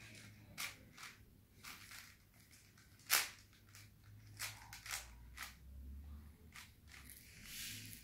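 Layers of a plastic 5x5 Rubik's cube being turned by hand: irregular plastic clicks and clacks, about a dozen, the loudest a sharp snap about three seconds in.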